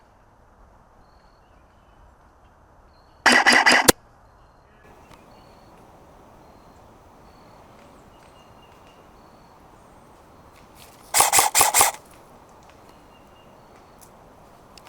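Airsoft guns firing two short bursts of rapid pops, one a few seconds in and another near the end, each lasting well under a second.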